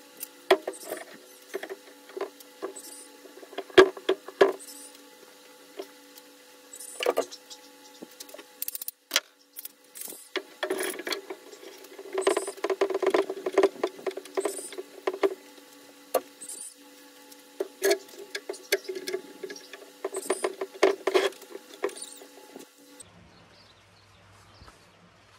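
Irregular clicks, knocks and scraping of hardwood strips and clamps being handled during a cutting-board glue-up, over a steady background hum. The sound cuts off abruptly near the end, leaving a quieter low hum.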